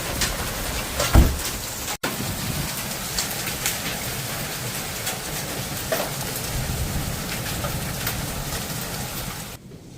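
Heavy rain falling in a thunderstorm: a steady hiss with many sharp drops and splashes. There is a single low thump about a second in, and the rain drops out for an instant about two seconds in, then turns much quieter near the end.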